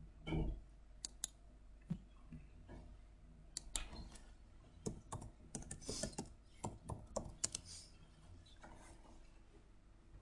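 Faint typing on a computer keyboard: a quick run of key clicks in the middle, with a few scattered clicks before it.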